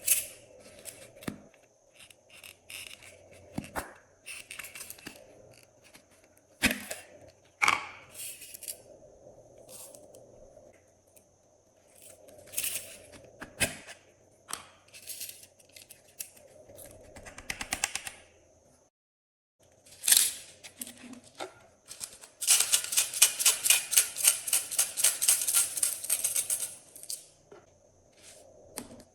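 Glossy slime being handled and mixed, with irregular sticky clicks and pops. About two-thirds of the way in comes a dense run of rapid clicking that lasts about four seconds.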